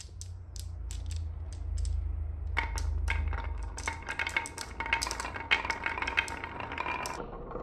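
Marbles clicking against one another in a hand, then from about two and a half seconds in a rush of marbles rolling down a wooden slope with wavy carved grooves. They rattle and clack against the wooden walls and each other in a dense, fast clatter.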